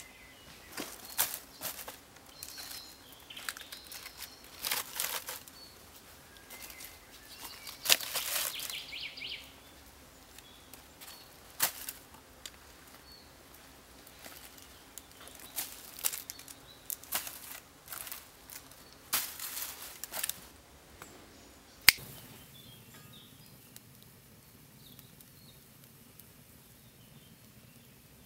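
Irregular scraping and rustling in dry leaf litter and soil from hand work with a blade, in short bursts. About 22 seconds in comes one sharp click, and after that it is quieter.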